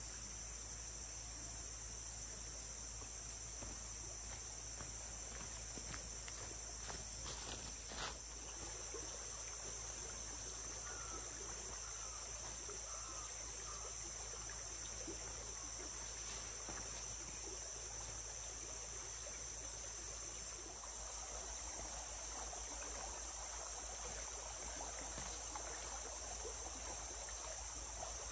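Steady, high-pitched chorus of rainforest insects droning without a break. There is a single sharp click about eight seconds in and a few faint short chirps soon after.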